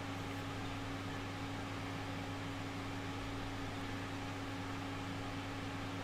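Steady low hum with a faint hiss: room tone.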